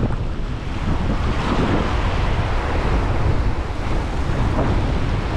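Ocean surf washing and churning over a rocky shore ledge, with wind buffeting the microphone as a steady low rumble underneath.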